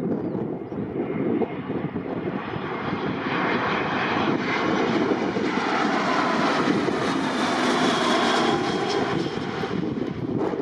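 Airbus A320's IAE V2500 turbofan engines on landing approach: a jet rumble and rushing noise with a high whine, growing louder as the airliner passes close by, peaking a little past the middle and easing slightly near the end.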